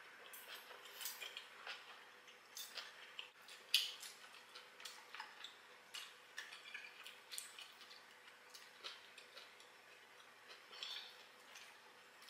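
Faint, scattered clicks and scrapes of metal forks and spoons against ceramic plates and bowls as people eat, with one louder clink about four seconds in.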